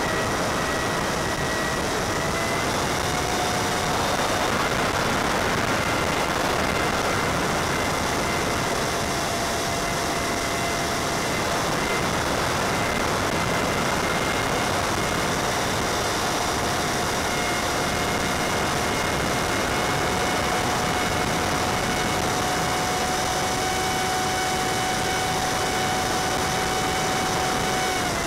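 The Easy Star's E-flite Six Series 2700 kV electric motor and propeller make a steady whine under power, heard over a constant hiss. The whine steps up slightly in pitch a few seconds in as the throttle is advanced.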